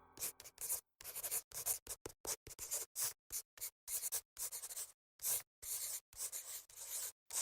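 Pen drawing on paper in quick, irregular scratchy strokes, a few a second.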